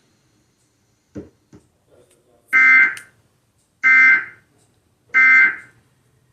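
Emergency Alert System end-of-message data signal: three short bursts of rapid two-tone digital buzzing, about a second and a bit apart, marking the end of the alert. Two faint clicks come just before them.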